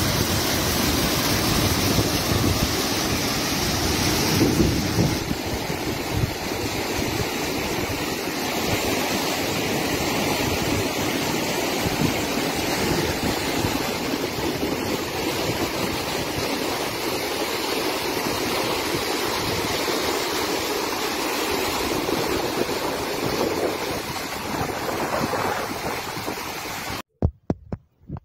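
Floodwater rushing and churning in a torrent, a loud steady noise of turbulent water. It cuts off abruptly about a second before the end, and a few sharp knocks follow.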